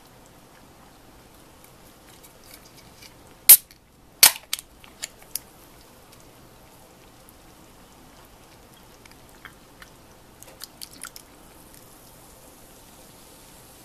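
A can of Asahi Dry Zero non-alcoholic beer being handled and its ring-pull opened: a few sharp metallic clicks and cracks, the two loudest a little under a second apart, then a cluster of small clicks. Near the end a faint fizzing hiss as the beer pours into a glass.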